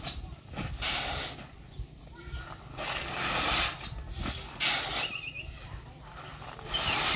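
Granular fertilizer pellets pouring from a metal scoop onto a heap of fertilizer, a rushing hiss about four times, each pour lasting half a second to a second, as the fertilizer is mixed by hand.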